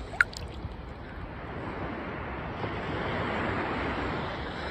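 Calm seawater lapping and sloshing against a camera held at the waterline, swelling in the middle. One brief sharp sound comes about a quarter second in.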